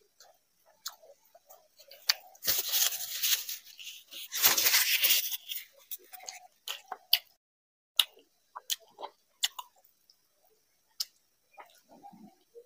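Close-up eating sounds: fingers squishing rice and curry in a glass bowl, with chewing and sharp mouth clicks scattered through. Two longer, louder hissing rustles come about two and four seconds in.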